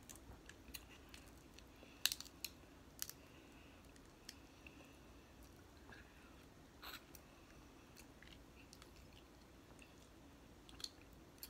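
Quiet, sparse clicks and crackles of shellfish shell being peeled apart by hand, with soft chewing. A few sharp cracks bunch together about two to three seconds in, with single ones near seven seconds and near the end.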